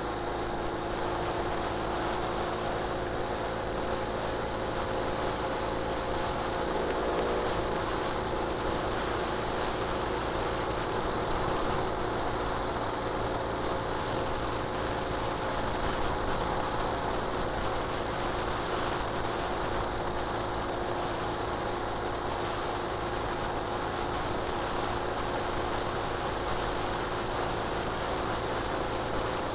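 Ural Retro sidecar motorcycle's air-cooled flat-twin engine running steadily at highway cruising speed, over a constant hiss of wind and road noise.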